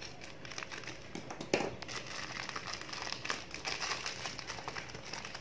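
Plastic parcel wrapping crinkling and crackling as it is cut open with scissors and pulled apart by hand. The crackles are scattered and small, with a louder one about a second and a half in.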